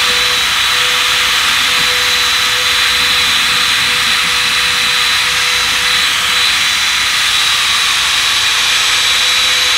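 Cordless drill running steadily, spinning a tight-fitting brass wire brush inside a motorcycle handlebar tube to scour out weld slag and metal shards: a steady whine over a scraping hiss.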